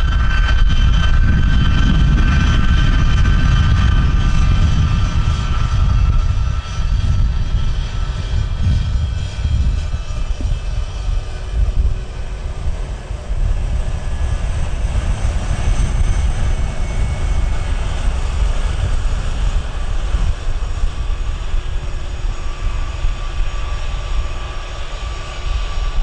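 Airliner engines: a loud low rumble with a steady high whine, strongest for the first few seconds, then easing to a steadier, lower rumble.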